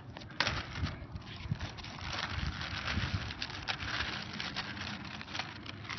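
Clear plastic bag crinkling and rustling as chopped onions are shaken out of it into a pot, with a sharp click about half a second in.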